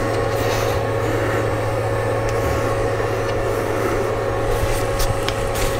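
Steady machine hum with a few faint light ticks.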